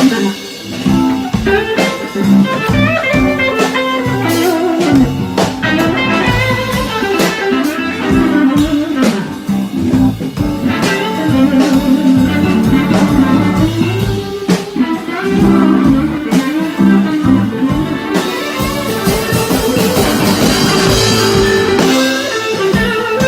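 A blues band playing, guitar leading over a drum kit, with a cymbal wash swelling in the last few seconds.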